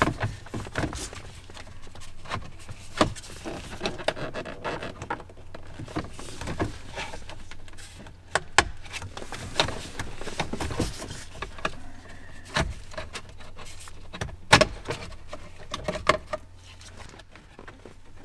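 Irregular clicks, knocks and rattles of the plastic lower steering-column cowl trim on an Audi Q7 being worked loose from the upper cowl and lowered, with a few sharper knocks among them, over a steady low hum.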